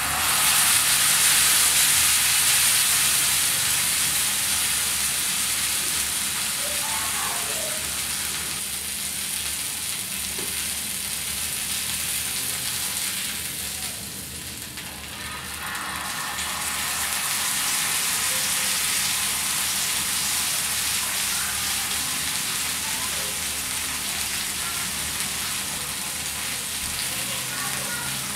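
Pork steak sizzling in hot oil in a shallow metal pan, a steady hiss. It dips briefly about halfway, when the steak is lifted with tongs, and grows louder again once it is set back down.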